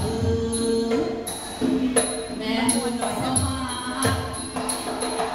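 Thai traditional ensemble music for likay: small ching hand cymbals strike a steady beat with bright metallic clinks, under low drum thumps and a sustained melody line.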